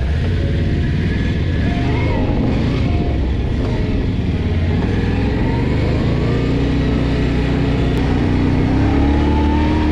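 Quad ATV engine running steadily while riding across sand, with a dense low rumble; the engine note rises a little near the end.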